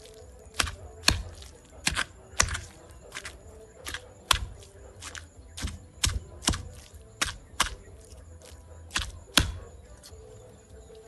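Stone pestle pounding a moist spice paste in a stone mortar: sharp, uneven knocks about twice a second, dying away about nine and a half seconds in.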